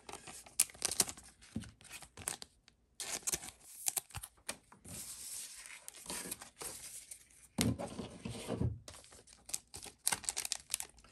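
Trading-card booster pack wrapper being torn open and crinkled: sharp crackles and clicks, then a longer tearing rustle in the middle, with a couple of dull handling bumps about eight seconds in.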